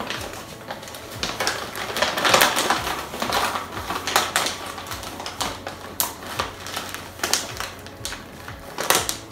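Plastic flour bag crinkling and rustling with irregular crackles as flour is scooped out of it. Near the end there is a louder crackle as the bag's zipper top is pressed shut.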